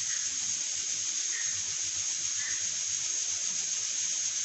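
Steady hiss from an aluminium pressure cooker heating on a lit gas burner.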